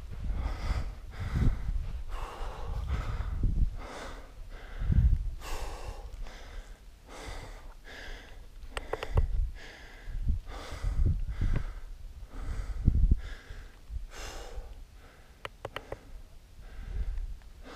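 A hiker breathing hard and rhythmically from exertion, about one breath a second.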